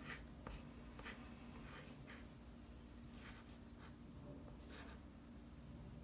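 Faint scratching of a stick of chalk writing on a metal chalkboard, short irregular strokes every half second or so.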